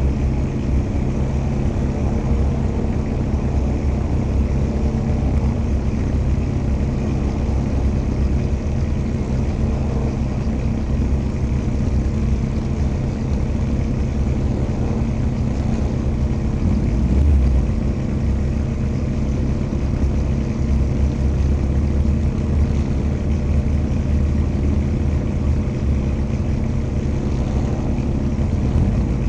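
A vintage Fiat race car's engine idling steadily, heard from on board, with a brief swell about halfway through.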